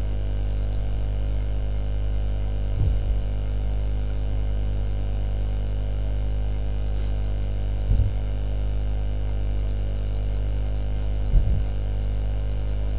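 Steady electrical mains hum on the recording, with three soft low thumps and some faint rapid clicking in the second half.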